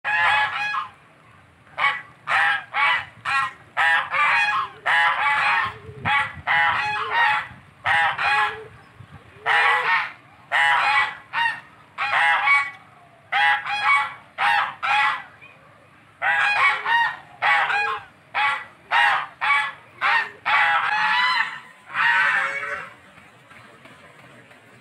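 White domestic geese honking loudly over and over, the calls coming in quick runs and stopping shortly before the end.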